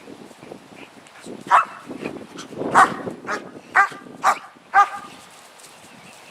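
Dog barking five times in quick succession, in a sequence of sharp barks while it is held back from a ball: the dog is learning to bark on command.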